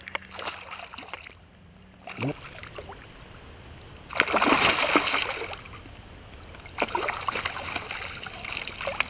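A hooked trout thrashing and splashing at the water's surface as it is played to the bank, with the loudest splashing about four seconds in and again near the end as it is drawn into a landing net.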